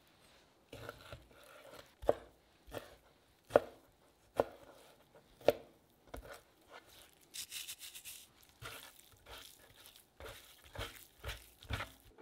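Chef's knife cutting raw chicken breast into chunks on a plastic cutting board, the blade knocking sharply on the board about once a second, with softer slicing and handling of the meat in between.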